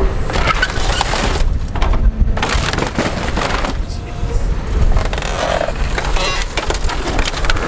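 Excavator crushing a Geo Metro: sheet metal crunching and creaking with irregular cracks and knocks, over the steady low rumble of the excavator's engine.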